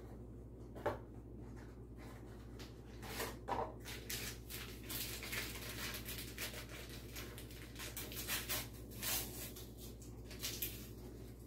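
A cardboard Jell-O mix box being opened and its inner paper powder packet torn and crinkled: a few light clicks, then a long run of crackling paper rustles.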